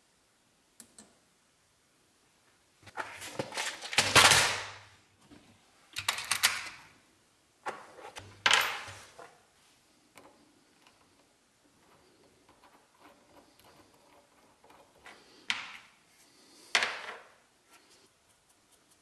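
Steel lathe chuck parts handled by hand: a thin metal rod worked in the chuck's holes and small steel bolts clinking and scraping in several short bursts, the loudest about four seconds in.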